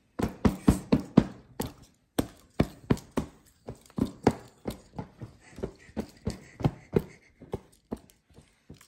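Hands patting and plumping a large stuffed plush pillow on a stone countertop: a quick, irregular run of soft thumps and taps, several a second, with a brief pause about two seconds in.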